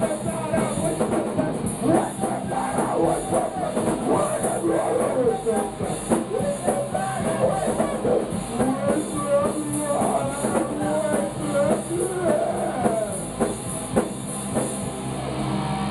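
Punk rock band playing live in a small rehearsal room: a singer shouting into a microphone over electric guitar and drums, a dense wall of noise.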